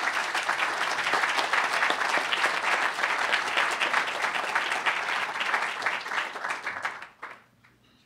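Audience applauding a speaker's introduction, a steady clatter of many hands for about seven seconds that then dies away.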